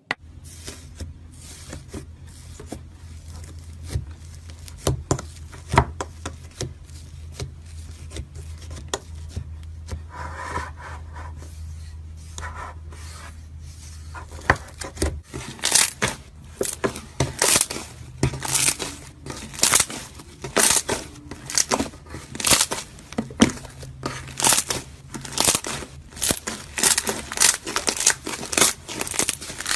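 Slime being squeezed and stretched by hand, with sticky clicks and pops. These grow louder and come more often, roughly two a second, from about halfway through.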